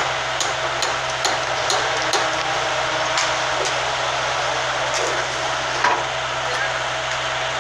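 Dredging excavator's engine running steadily with a constant hum, over which sharp metallic knocks and clanks come at irregular moments, about eight of them.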